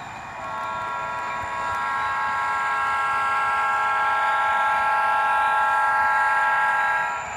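HO-scale TCS WowDiesel sound decoder playing a Nathan multi-chime air horn through a small sugar cube speaker: one long blast, a steady chord that builds over the first second or so, holds, and cuts off near the end.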